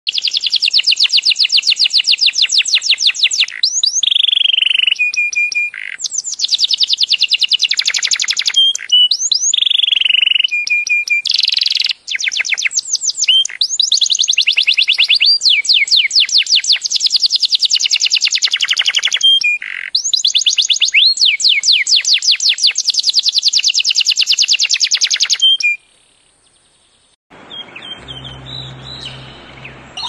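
Red-factor domestic canary singing: long rolling trills of fast repeated notes broken by held whistled notes, phrase after phrase with short breaks, stopping about 26 seconds in. A fainter, noisier sound with a low hum follows near the end.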